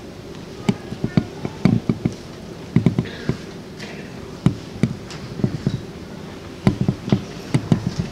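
Irregular knocks and thumps on a wooden stage floor: footsteps and stage furniture being moved, a dozen or more uneven hits over the stretch.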